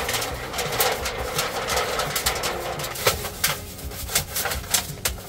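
Thin sheet-metal wood-stove chimney pipe being handled on a pickup truck's bed, rattling and scraping in a run of quick clicks and knocks.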